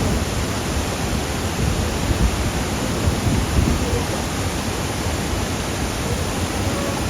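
Waterfall rushing: a loud, even hiss of falling water with an uneven low rumble underneath.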